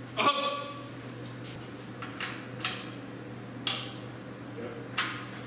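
A handful of light, sharp metallic clinks and taps from hands working on a race truck's exposed engine, over a steady low hum. A short squeaky tone sounds at the very start.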